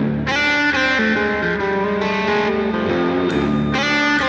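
Background music led by electric guitar with effects, playing a sequence of notes.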